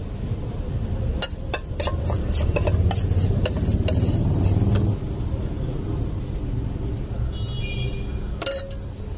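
A metal spoon clinking and scraping against a plate as filling is spread, a quick run of a dozen or so clinks, then one more near the end. Under it runs a steady low rumble of street traffic.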